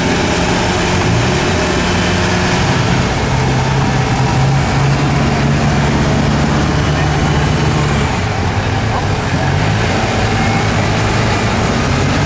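Off-road 4x4 engines running under load on a muddy slope, the engine note rising and falling with the throttle.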